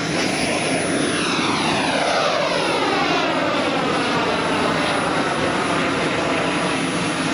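Small gas-turbine engine of a radio-controlled scale jet passing low and climbing away: a steady jet roar with a sweeping whine that falls in pitch over several seconds as it goes by.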